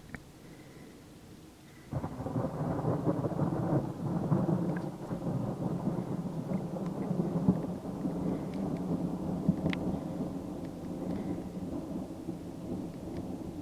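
Thunder: a sudden clap about two seconds in, then a long rolling rumble that slowly fades, with rain falling.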